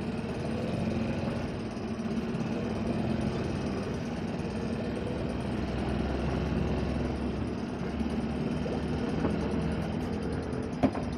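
Small outboard motor running steadily, with one sharp knock near the end.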